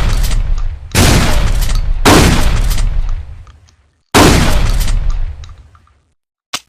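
Trench shotgun firing three shots, about a second in, a second later, and two seconds after that, each blast followed by a long echoing decay. A short sharp click sounds near the end.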